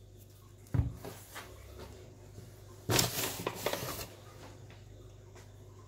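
Hands working fresh noodle dough on a kitchen countertop: a single thump about a second in as the dough is set on the counter, then about a second of rustling and scraping near the middle as the cut noodles are swept together.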